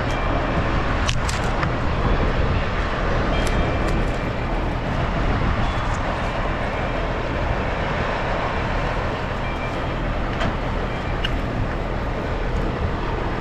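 Steady rushing of wind buffeting the microphone high up in a tree, with a few light clicks near the start.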